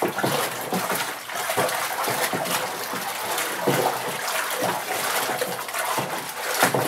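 Stir stick sloshing through a 7-gallon tanning pickle of salt water, mixing in the safety acid just added: a continuous run of swirling, splashing water.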